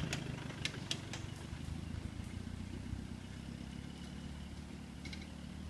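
A vehicle's engine running as it drives away, slowly fading, with a few sharp clicks in the first second or so.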